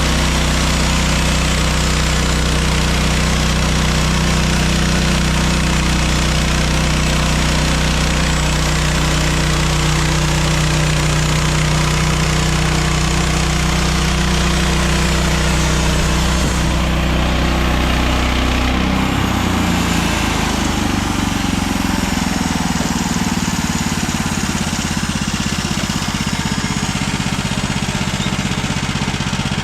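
Gas engine of a portable band sawmill running under load while the blade saws through a pine log, with a steady hiss over the engine. About two-thirds of the way through, the cutting hiss thins and the engine note shifts to a new pitch.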